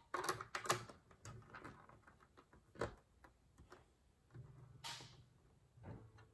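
Lego plastic pieces clicking and clattering as they are handled and pressed together, a quick cluster of sharp clicks in the first second followed by scattered knocks.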